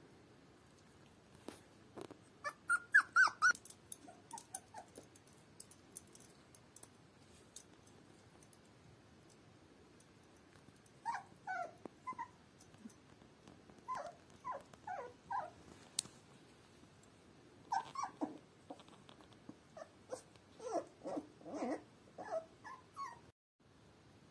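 Very young puppy whimpering in short high-pitched cries, in several bouts, the loudest about three seconds in.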